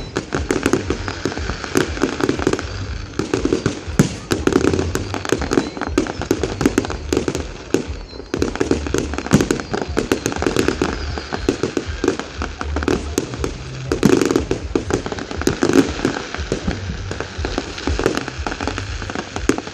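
Fireworks display going off in a near-continuous barrage of bangs and crackling bursts, many overlapping each second.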